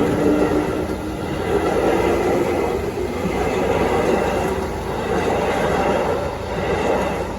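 JR Yamatoji Line electric train passing over the level crossing: continuous loud rumble of wheels on the rails that starts to fade near the end.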